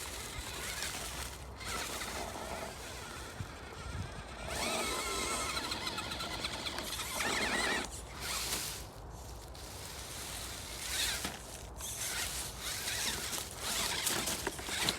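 FTX Ravine RC crawler's electric motor and drivetrain whining in bursts as it is driven, the pitch wavering with the throttle.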